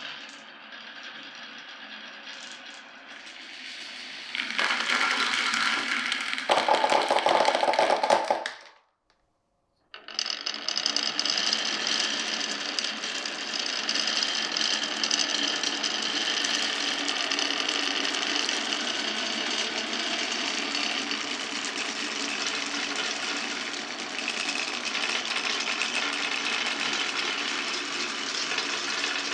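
Glass marbles rolling and clattering along a wooden marble run, a fast continuous rattle. It grows louder a few seconds in, stops dead for about a second near the nine-second mark, then resumes as a steady, dense rattle.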